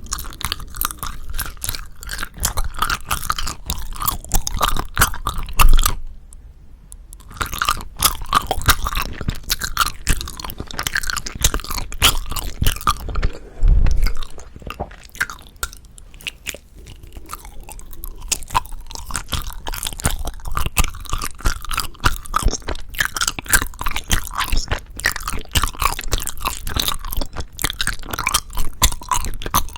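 Close-miked chewing of soft, chewy Korean rice cake (tteok): runs of wet, sticky mouth sounds, with two short pauses about six and thirteen seconds in.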